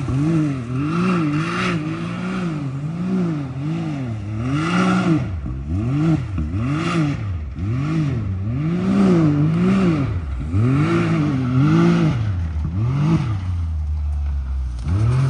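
Can-Am Maverick X3 side-by-side's turbocharged three-cylinder engine revving up and down over and over, about once a second, as the throttle is worked. Near the end it drops to a low, steady idle.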